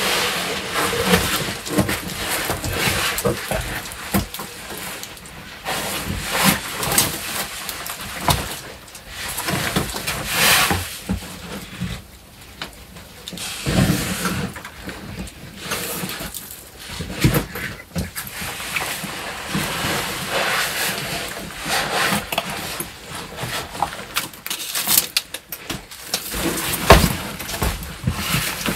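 Irregular scraping and rustling of clothing, shoes and a wooden pole against rock as a person climbs through a narrow rock crevice, with scattered knocks and one sharper knock near the end.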